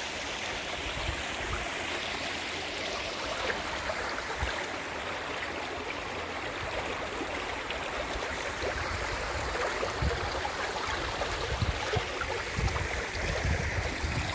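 Small mountain stream trickling and gurgling at its source, a steady rush of water with a few soft low bumps.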